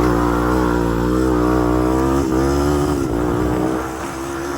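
Honda TRX250X ATV's single-cylinder four-stroke engine running under the rider's throttle, its pitch wavering up and down. It eases off near the end.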